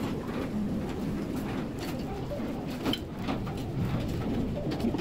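A knife and metal server clicking and scraping against a plate while a crusty bread is cut and served, a few separate clicks over a steady low background hum.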